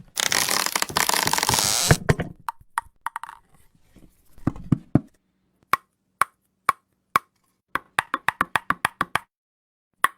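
A two-second burst of loud hissing noise, a couple of low thuds, then a string of short, sharp pops that come faster about eight seconds in, like a hand-made sound effect of popping or knocking.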